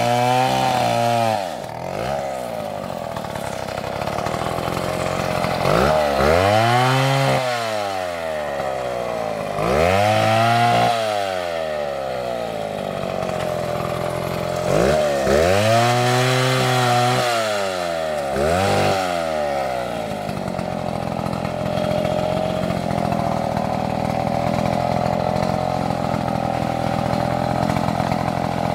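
Two-stroke STIHL chainsaw with a long bar, cutting into a log and revved up and down in about five bursts, each rising and falling in pitch. About two-thirds of the way in it settles into running at a steady speed.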